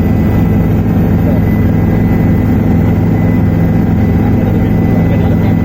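Helicopter turbine and rotor noise heard from on board: a loud, steady low drone with a thin, steady high whine over it.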